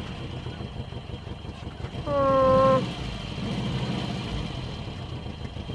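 Vehicle engine idling with a steady low rumble. About two seconds in, a single flat held tone sounds for under a second.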